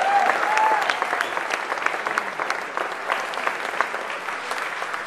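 A large crowd applauding, with dense irregular clapping that slowly dies down.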